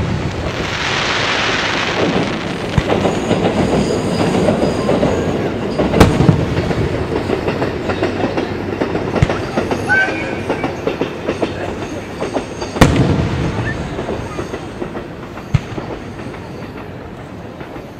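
Aerial firework shells bursting overhead: two sharp bangs about six seconds apart, each followed by a long rumbling echo, with dense crackling from the bursting stars in between. A hiss in the first couple of seconds.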